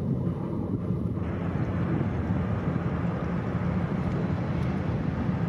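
Steady low rumble of a fishing trawler's engine as the boat passes close by, with a broader hiss joining about a second in.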